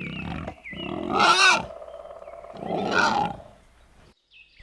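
Wild boar calling: low grunting at the start, then two loud, harsh calls with wavering pitch about one and three seconds in, before it falls quiet.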